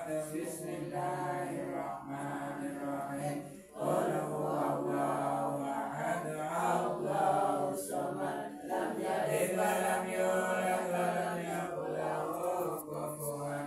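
A congregation chanting Arabic dhikr together in a steady, drawn-out unison, with a brief pause for breath about four seconds in.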